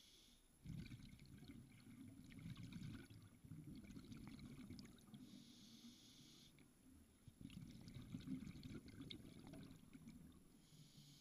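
Scuba diver breathing through a regulator underwater: two long gurgling, crackling bursts of exhaled bubbles, each followed by a short steady hiss of inhalation.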